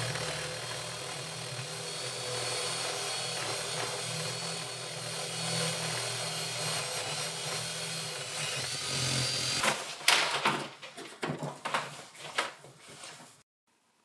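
Ridgid 18V cordless drill running steadily with a spade bit, boring a hole about 1 inch wide through a wood floor. The steady run breaks off about ten seconds in, followed by several irregular knocks and scrapes.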